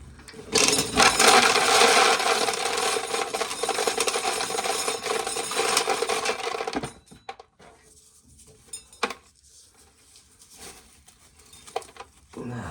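Corn sheller running with a rasping rattle of ears and kernels going through it, starting about half a second in and cutting off after about six seconds. A few faint clicks and knocks follow.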